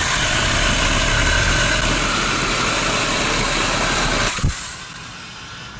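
A 24-volt cordless 4-inch mini chainsaw running and cutting through a softwood 2x4, a steady loud motor-and-chain noise. It stops abruptly with a knock a little over four seconds in.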